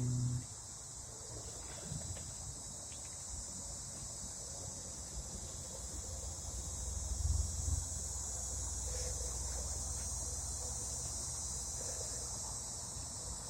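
Insects chirring in a steady high-pitched chorus, with a low rumble underneath that swells for a moment around seven seconds in.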